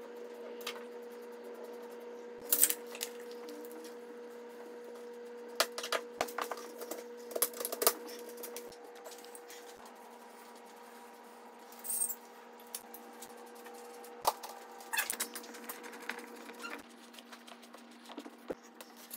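Scattered small clicks and clinks of metal and plastic as a hand screwdriver drives screws into the ceiling and strip light fixtures are fitted. A steady low hum runs underneath.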